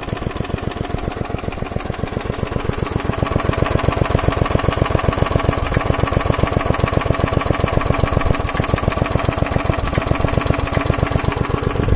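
Lawnmower's 4 hp Briggs & Stratton single-cylinder engine idling steadily with an even, rapid firing beat, getting slightly louder about three seconds in.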